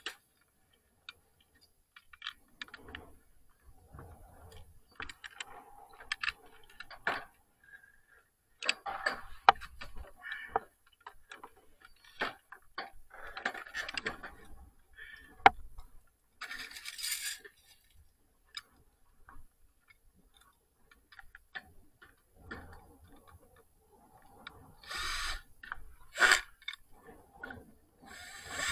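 Irregular knocks, clicks and scraping on corrugated steel roof sheeting: a roped worker moving across the roof and handling rope, carabiner and tools. Two short noisy bursts come near the end.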